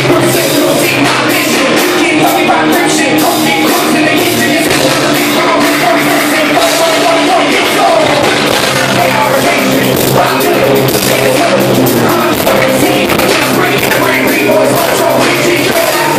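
Live rap-rock band playing loud, with distorted electric guitar, drums and DJ turntables, and an MC's shouted vocals through the PA.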